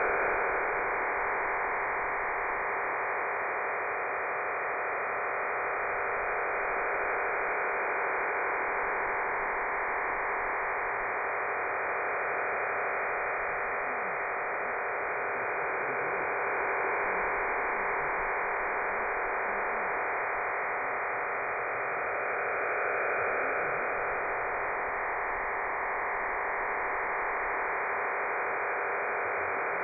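HM01 Cuban number station's digital data transmission received on shortwave through an SDR in AM mode: a steady, dense hiss with faint steady tones inside it.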